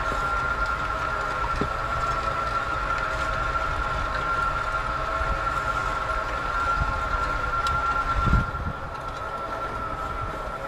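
FarmDroid FD20 field robot driving along a crop row: its electric drive motors give a steady whine over a low rumble and the rattle of the weeding tools through the soil, with a single knock a little after eight seconds in.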